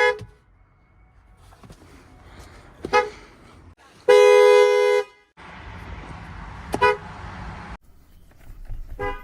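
Ford car horns honking in quick succession: a short toot about three seconds in, a held honk of about a second, then two more short toots, the last near the end.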